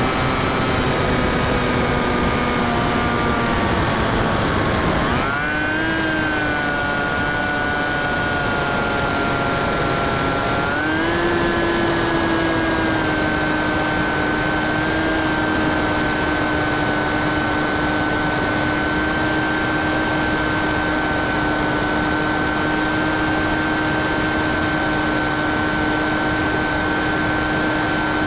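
Bixler 2 RC plane's brushless electric motor (NTM 35-30A 1400kv) and 9x6 propeller whining in flight, heard on board over rushing air. The pitch sags over the first few seconds, jumps up about five seconds in as the throttle opens, climbs again about eleven seconds in, then holds steady.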